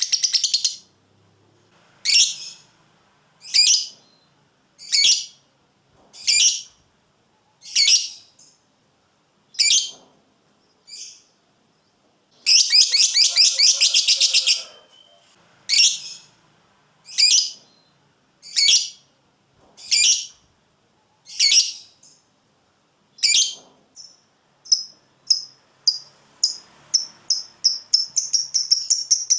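Lovebird calling with sharp, shrill single calls about every second and a half. Near the middle comes a fast chattering trill (the 'ngekek') lasting about two seconds. Toward the end, short chips come quicker and quicker.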